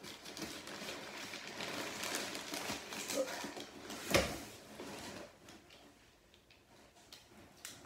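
Rustling of packaging and fabric as a jacket is handled and lifted out of a cardboard box, with a single knock about four seconds in; the handling turns quieter after about five seconds.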